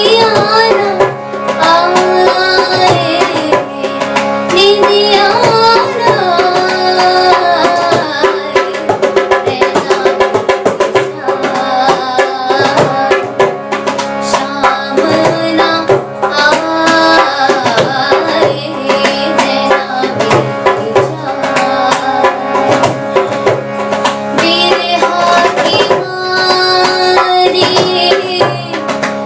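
A girl singing a slow Hindi film song, accompanied by tabla strokes over a steady drone.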